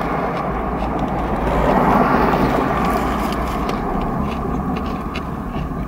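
Steady low rumble and hiss of vehicle noise heard inside a car's cabin, swelling slightly about two seconds in, with a few faint clicks.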